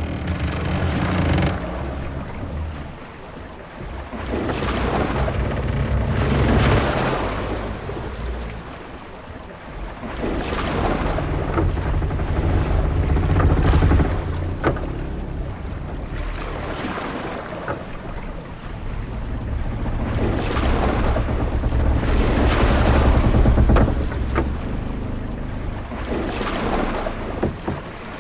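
Sea ambience aboard a ship: waves surge and wash in swells every four to seven seconds over a steady low rumble of wind and water, with a few short sharp clicks.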